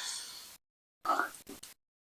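Close-miked mouth sounds of eating fufu with slimy ogbono soup: a wet chewing or swallowing sound fading out, then another short one about a second in.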